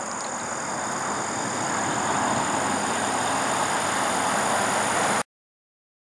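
Steady rushing noise of traffic on a nearby highway, swelling slightly about two seconds in, with a thin high drone of insects over it. It cuts off suddenly about five seconds in.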